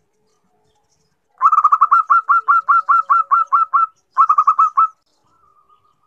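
Female zebra dove calling for a male: a fast run of about a dozen short, clipped coo notes, roughly five a second, then after a brief break a shorter run of about five more.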